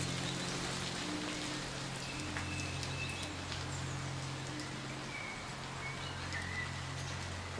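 Steady hiss of falling rain with a few short, high bird chirps, over the soft held low notes of an ambient music pad.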